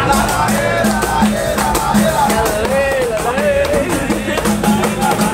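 Music with a steady drum beat and a singing voice.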